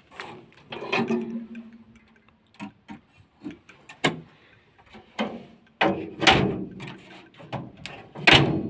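Scattered clicks and knocks, with a few louder rushing bursts of noise, two of them near the end.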